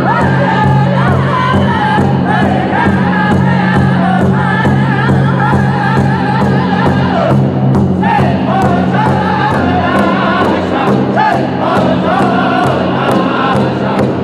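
Powwow drum group singing high-pitched in unison over a large shared powwow drum struck with drumsticks in a steady, even beat. The singing breaks off briefly a little past halfway, then comes back in while the drumbeat carries on.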